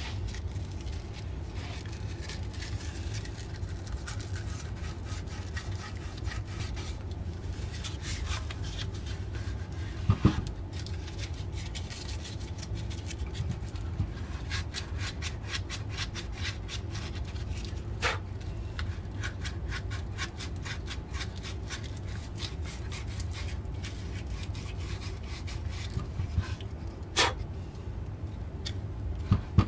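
Hand scraping and rubbing strokes on a carved wooden duck decoy, irregular and fine-grained, with a few sharp knocks of the piece or tool along the way, over a steady low hum.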